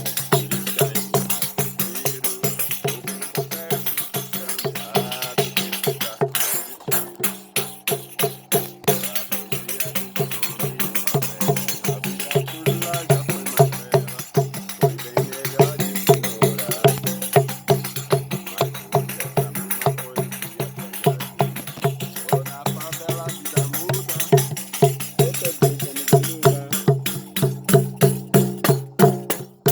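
Background music with a fast, steady percussion beat over a sustained low accompaniment.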